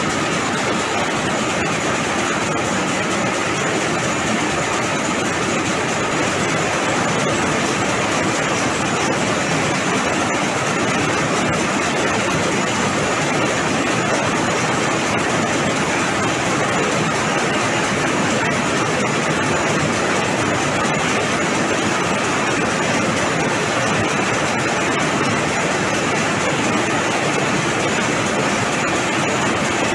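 Several high-speed rapier looms fitted with AMAR electronic jacquard heads, running in production. The result is a steady, fast mechanical clatter that does not let up.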